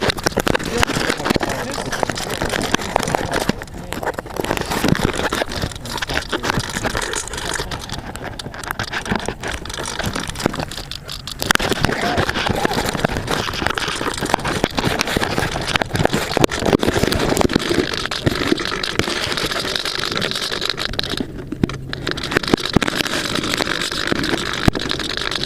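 Steady rushing, motor-like noise from an AXN Floater Jet RC plane in flight, with a few brief dropouts.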